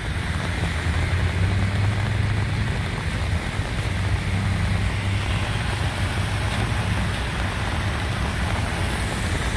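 Steady rain falling on wet pavement, with a vehicle engine idling underneath as a low, steady hum.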